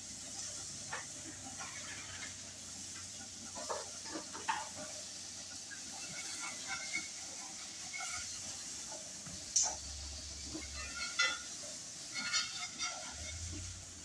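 Eggs frying in a skillet with a steady sizzling hiss, while a spatula scrapes and clicks against the pan and plate. The loudest knock comes about halfway through, with a run of clinks a little after.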